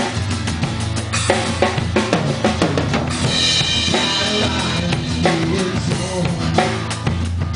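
Drum kit played in a live rock band during an instrumental passage between vocal lines: steady bass drum and snare hits over a bass line and guitar.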